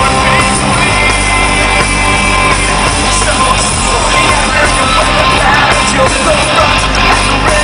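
Live piano-led rock band playing at full volume, with drums, electric guitar and piano, heard loud from within the crowd.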